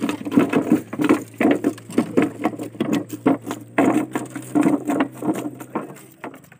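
A freshly landed giant trevally thrashing on the wooden floor of a boat: a rapid, irregular run of thumps and slaps, several a second, thinning out near the end.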